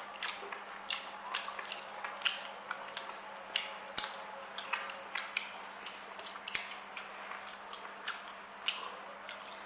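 Close-miked chewing and lip-smacking of someone eating octopus: irregular wet mouth clicks, a few each second, over a faint steady hum.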